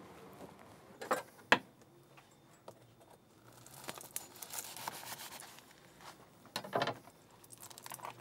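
A long bread knife sawing through a crusty ciabatta roll on a wooden cutting board, with a rasp from the crust in the middle. There are two sharp knocks about a second in and a short cluster of knocks near the end.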